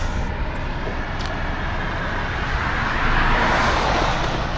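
Interstate traffic rushing past on the highway, with one vehicle swelling loudly past about three to four seconds in over a steady low rumble.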